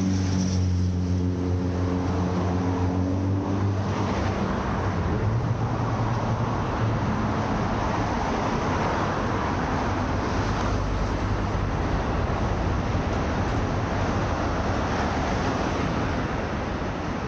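Road traffic noise. A vehicle engine hums steadily for the first four seconds or so, then gives way to a steady rush of passing traffic.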